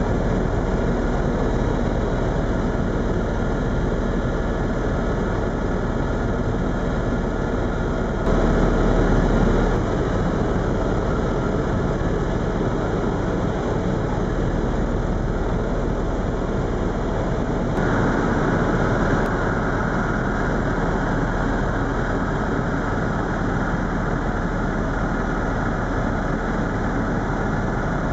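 Cabin noise of a Eurocopter EC130 Ecostar tour helicopter in flight: the turbine and main rotor make a steady, loud noise, briefly louder about eight seconds in.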